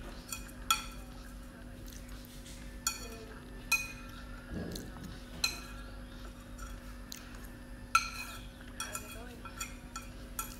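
Chopsticks clinking against a bowl while eating noodles: sharp, briefly ringing clinks every second or two, then a quicker run of small taps near the end.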